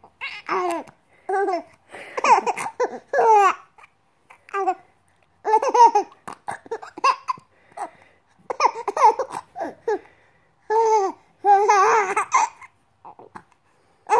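Three-month-old baby laughing in short, high-pitched bursts with pauses between them, going quiet for the last second or so.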